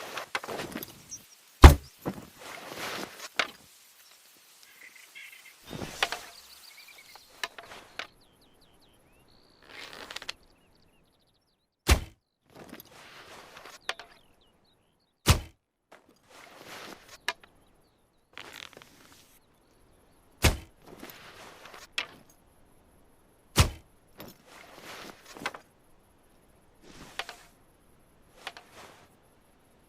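Houyi recurve bow being shot: five sharp thunks several seconds apart, with quieter rustling and small knocks between them.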